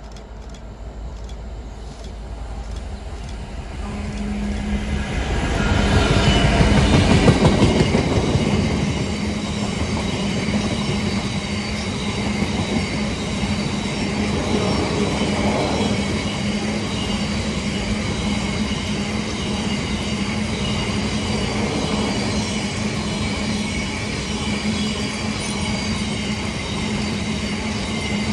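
A freight train passing. A Class 66 diesel locomotive's engine grows louder as it approaches and is loudest about six to eight seconds in. A long rake of Drax biomass hopper wagons then rolls by with steady wheel-on-rail noise and a constant low hum.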